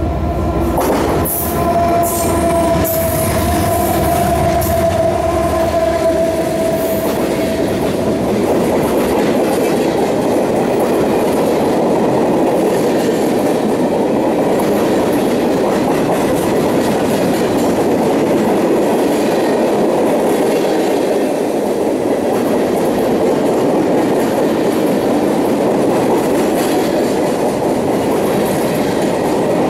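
A long freight train passing close by. Over the first several seconds there is a deep rumble with a held tone, then a steady rolling rumble and clatter of freight-car wheels on the rails.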